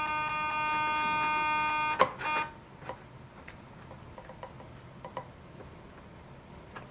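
KST X10 Mini digital wing servo buzzing steadily as it holds the flap. The buzz stops with a click about two seconds in, followed by a few faint light clicks and taps.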